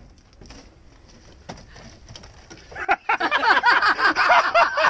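Quiet at first with a few faint clicks, then from about three seconds in, men laughing loudly and overlapping.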